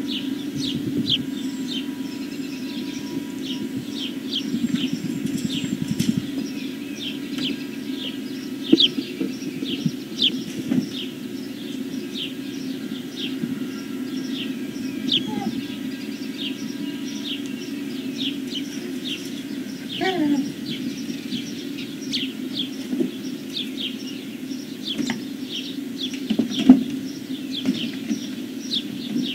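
Small birds chirping, short high falling chirps repeated again and again over a steady low hum. A brief falling whine comes about twenty seconds in, and a single sharp knock near the end.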